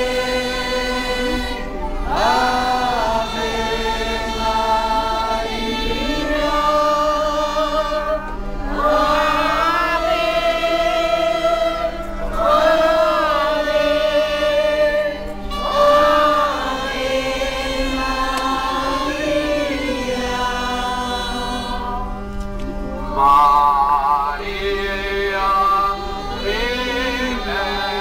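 A crowd of voices singing a hymn together, in long sung phrases with short pauses for breath between them.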